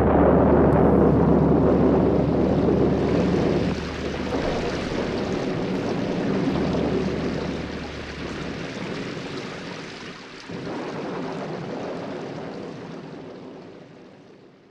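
Steady rain falling as an even hiss, with a low rumble beneath it for the first few seconds. It fades away to silence near the end.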